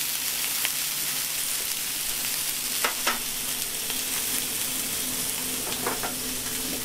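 Chicken wings sizzling steadily in hot oil in a frying pan. Two sharp clicks come about three seconds in, and fainter ones near the end, over a low steady hum.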